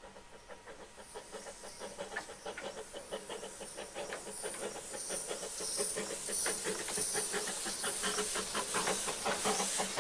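Narrow-gauge steam locomotive approaching slowly and drawing alongside, its steam hissing over a dense run of clicks and knocks from wheels and motion. The sound grows steadily louder as it nears.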